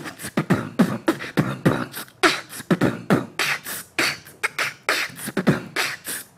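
Man beatboxing into a handheld microphone with his hand cupped around the grille, which keeps in the bass: a quick, steady stream of mouth-made kick-drum and snare sounds, the kicks dropping in pitch.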